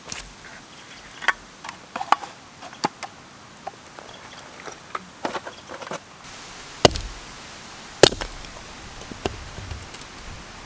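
Firewood being chopped with an axe: a run of light knocks and clacks of wood, then two heavy strikes about 7 and 8 seconds in.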